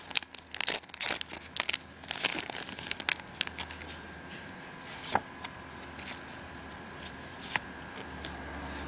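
Foil trading-card booster pack being torn open and crinkled: a dense run of sharp crackles for the first few seconds. It is followed by a couple of single crisp clicks as the cards inside are handled.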